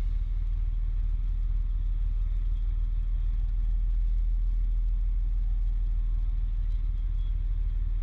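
A parked 2010 Pierce Arrow XT fire engine's diesel engine running with a steady low rumble, heard from inside the cab.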